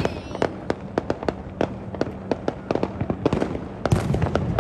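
Many fireworks going off across the city, a continuous irregular string of bangs and cracks several per second, with a louder cluster near the end.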